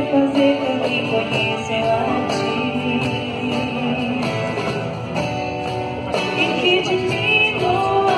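Live acoustic trio: a woman singing long, held notes into a microphone, accompanied by an acoustic guitar and a cajón.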